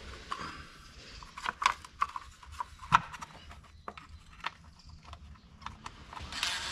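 Scattered clicks and clacks of hands fitting parts back onto the top of a John Deere Gator 825i engine, with a few sharper knocks in the middle. Near the end a cordless power tool starts running.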